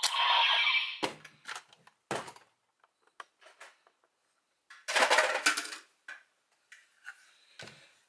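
The tail end of a toy's electronic sound effect fades out in the first second. Hard plastic toy parts then click and clatter as they are handled and set down, with a denser clattering rattle about five seconds in.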